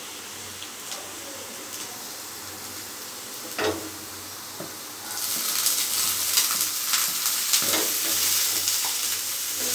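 Sliced onions frying in oil in a non-stick pan, the spatula scraping and tapping through them, with a knock about three and a half seconds in. A little after five seconds a much louder, crackling sizzle starts as chopped green ingredients go into the hot oil and are stirred.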